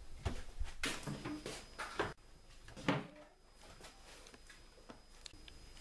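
Kitchen wall cupboard door being opened, with several knocks and clatters over the first three seconds.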